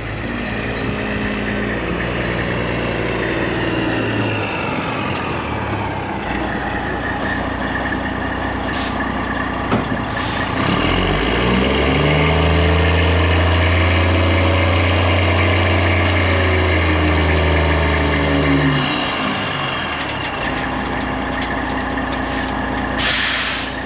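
Peterbilt 379 dump truck's diesel engine running, revving up for about seven seconds in the middle and then dropping back to idle. Short bursts of air hiss come twice, the second near the end.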